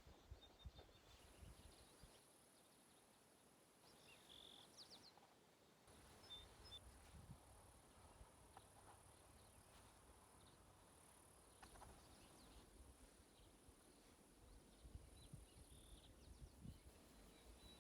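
Faint meadow ambience: a steady high insect buzz, a few short bird chirps, and a low rumble of wind on the microphone.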